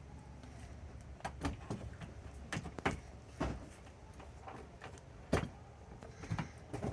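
Irregular clicks and knocks of door-lock hardware being handled and fitted into an RV entry door, with a sharper knock about five seconds in.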